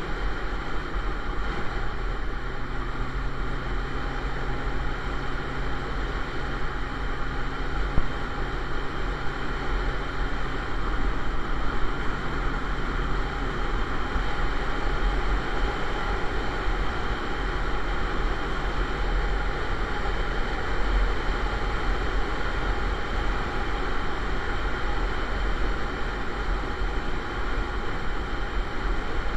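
Motorcycle cruising at steady speed on an open road: constant wind rush and road noise over the camera with a low engine drone, a faint steady note that fades about two-thirds of the way in.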